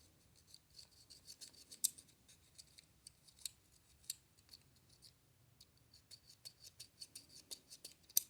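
Faint, irregular small clicks and light scratches of hands handling a small plastic toy and its battery compartment, with a few sharper ticks.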